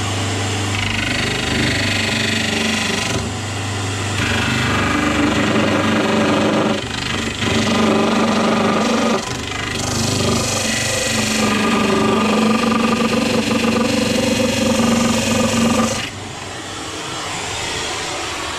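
Bench belt-and-disc sander running with a wooden board pressed flat against the belt on its platen, sanding the board's edge down to a pencil line; the grinding rises and falls as the pressure changes and eases off about two seconds before the end.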